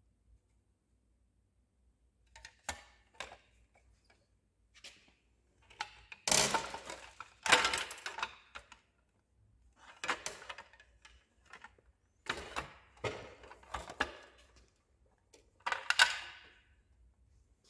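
Belt covers being handled and fitted onto an industrial sewing machine head: a series of irregular clicks and knocks with short scraping rubs, the loudest clusters about six to eight seconds in and near the end.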